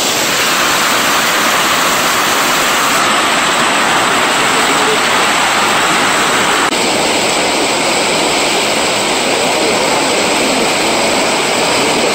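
Loud, steady rush of water gushing out of a canal outlet and churning white in the channel below, its tone shifting a little past halfway through.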